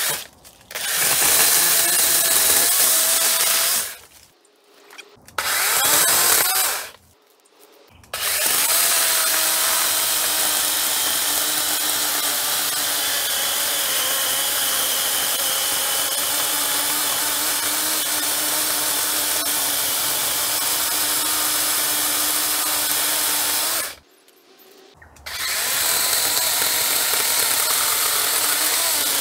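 Dewalt 20V MAX XR cordless chainsaw cutting through a thick rhododendron branch, its electric motor and chain whining under load. It runs in separate spells on the trigger: two short ones, then one of about sixteen seconds, then another near the end. It falls almost silent in between, because a battery saw does not idle.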